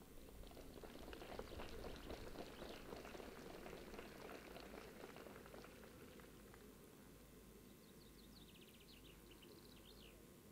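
Near silence: faint outdoor ambience, with a faint crackling patter in the first half and a short chirping trill near the end.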